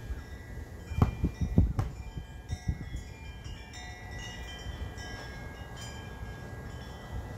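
A basketball bounced four times on packed dirt about a second in, then wind chimes ringing, several overlapping tones sounding together.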